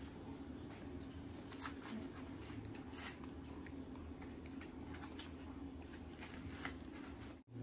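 Faint, irregular clicks and rustles of thin punch-out cardboard pieces being handled and slotted together by hand, over a steady low hum.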